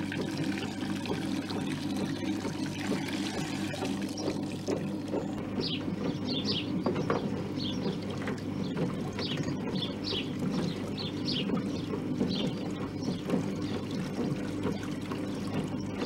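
Water squeezed out of wet laundry by the motor-driven wringer rollers of a 1960s Hotpoint Countess washing machine, pouring and trickling back into the tub, over the steady hum of the motor turning the rollers.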